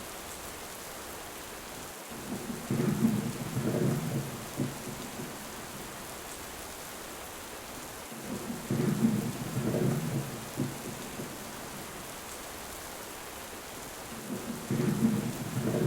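Steady heavy rain with thunder rumbling three times at even intervals, each roll lasting about two seconds with crackling peaks.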